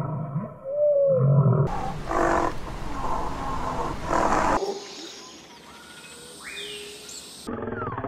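Calls of several large wild animals, cut one after another every few seconds. First a low pitched call with a short rising squeal, then a louder, rougher call, then quieter, high gliding calls.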